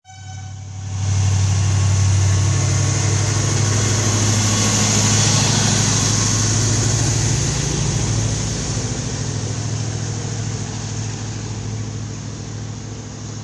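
Arriva SA106 diesel railcar departing: its diesel engine throttles up about a second in and runs as a steady low drone as the railcar pulls away, then slowly fades over the last few seconds as it moves off.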